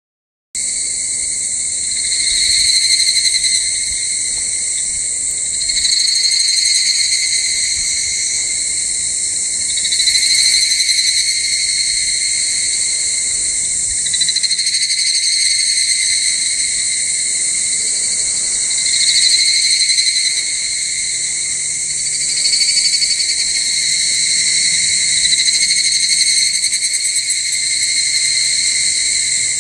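A chorus of higurashi (evening cicadas, Tanna japonensis) singing. Overlapping calls swell and fade every few seconds.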